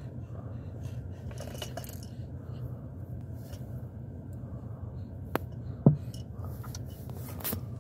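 Steady low hum inside a stopped car, with a few sharp plastic clicks and taps as a baby handles his toys in a car seat; the loudest click comes about six seconds in.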